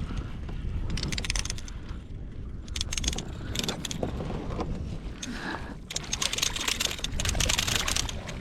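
Wind buffeting the microphone in a steady low rumble aboard a fishing kayak, with scattered small clicks and rattles of gear being handled; from about six seconds in a louder rushing hiss of wind and water joins.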